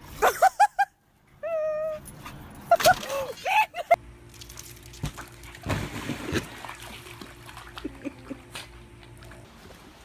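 A dog whining and yelping in a run of short pitched calls, one of them held for about half a second, followed by a low steady hum from about four seconds in.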